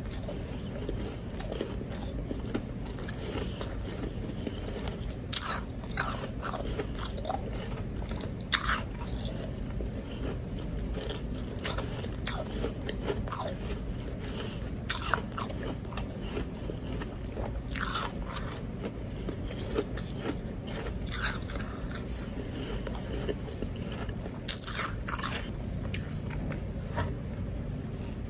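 Blender-crushed powdery ice being bitten and chewed close to the microphone: sharp crunches at irregular intervals every second or few, with quieter chewing between, over a steady low background hum.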